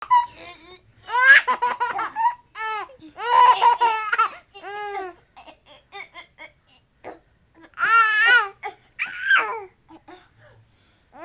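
A baby laughing in several high-pitched bursts, with a quieter lull in the middle before more laughter.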